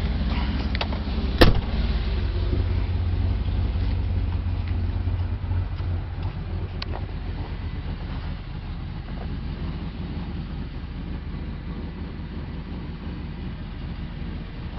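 1987 Chevy G20 van's 305 small-block V8 idling steadily with a low hum. One sharp bang about a second and a half in stands above it, with a fainter click later.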